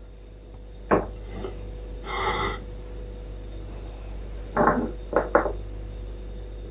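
Containers being handled on a kitchen counter: a sharp knock, a short scraping rub, then a few quick knocks near the end.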